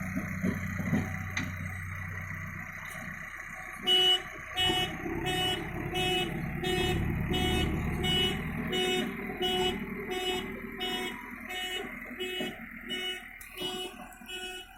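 Backhoe loader's diesel engine running, and from about four seconds in a pitched electronic alarm beeping about twice a second, typical of a reversing alarm.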